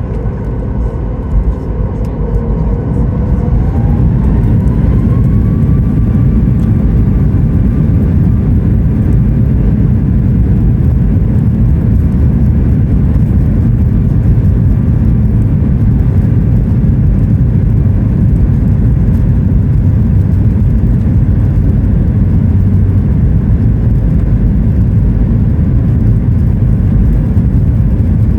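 Boeing 737 MAX 9's CFM LEAP-1B engines spooling up to takeoff thrust, heard from inside the cabin: a rising whine a few seconds in as the sound grows louder, then a steady loud rumble as the jet runs down the runway on its takeoff roll.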